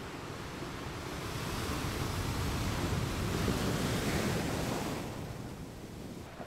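Seaside wind and surf noise, a rushing hiss that swells over a couple of seconds, is loudest a little past the middle, then fades away.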